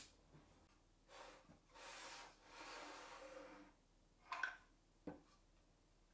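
Faint handling of MDF jig parts on a wooden workbench: soft rubbing and sliding for a couple of seconds, then a light wooden knock about four and a half seconds in and a sharper tap a moment later as the pieces are set down.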